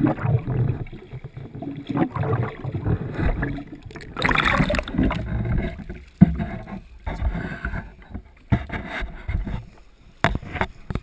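Water sloshing and gurgling around an underwater camera held just below the surface beside a boat, with a louder splash about four seconds in. It is followed by a sharp knock and, near the end, a few more knocks.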